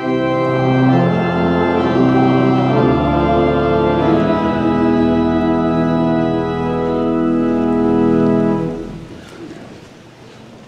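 Church organ playing the sung 'Amen' response as a slow series of held chords; the last chord fades away about nine seconds in.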